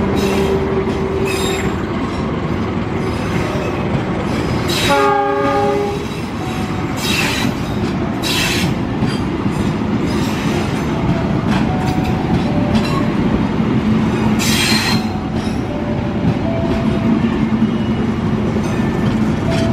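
Passenger train coaches running past at speed, a continuous loud rumble and rush of wheels on the rails. A brief horn blast of several pitches sounds about five seconds in, and a few short hissing bursts come later.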